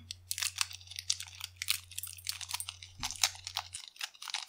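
A small latex balloon is handled and squeezed out over a glass bowl, making a run of quick, irregular crackling clicks.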